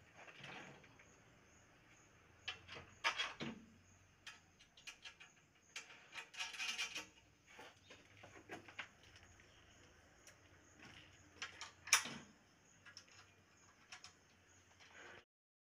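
Faint, scattered metal clinks, taps and scrapes as an air-conditioner outdoor-unit wall bracket arm is fitted to its upright rail. The sharpest clank comes about twelve seconds in.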